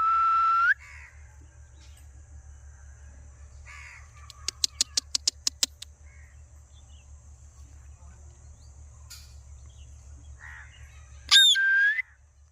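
Pet parrot calling: a loud, held screech at the start and another near the end that swoops down, holds and rises again. A quick run of about nine clicks comes in the middle, over a steady low hum.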